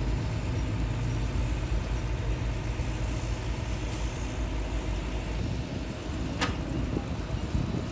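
Heavy diesel machinery running steadily as an excavator loads a truck, with one sharp knock near the end.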